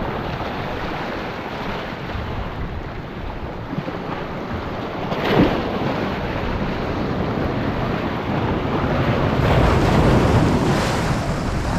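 Surf surging and washing over jetty rocks, with wind buffeting the microphone. There is a sharp slap of water about five seconds in, and a bigger wave washes up near the end.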